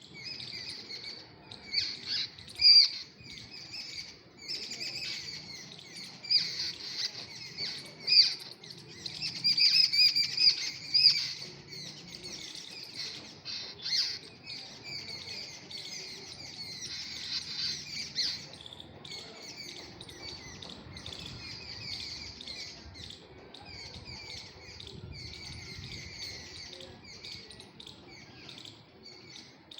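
Small birds chirping continuously, many quick high calls overlapping, busier and louder in the first twelve seconds or so.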